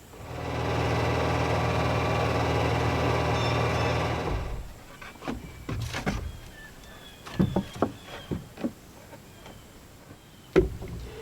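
Handheld power tool's electric motor running steadily for about four seconds, then stopping, followed by a series of sharp knocks and taps.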